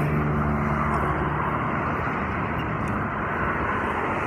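Street traffic noise: a motor vehicle's engine hum that fades out about a second and a half in, over a steady rushing noise.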